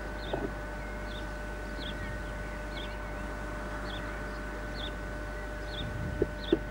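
A small bird repeating a short, high chirp about twice a second, over a steady faint whine. A few short knocks come near the end.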